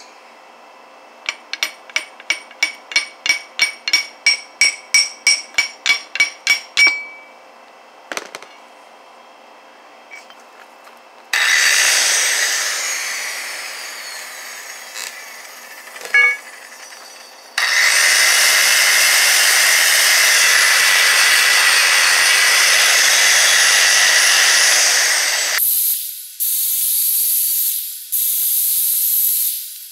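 About twenty quick hammer blows on steel, ringing and speeding up over some six seconds, as a bushing piece is driven out through a socket. Then an angle grinder starts with a whine and spins down, runs steadily for about eight seconds grinding on a steel suspension arm, and ends in a few short bursts.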